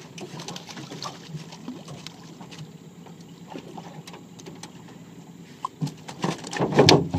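Two hooked catfish hauled into a metal boat on a trotline, flapping and knocking against the hull in a loud flurry for about a second near the end; before that, only faint knocks and water.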